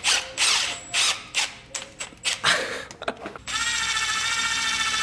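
Milwaukee M12 cordless drill with a socket extension running in several short bursts, then running steadily from about three and a half seconds in, as it drives the clutch pressure-plate spring bolts on a dirt bike engine.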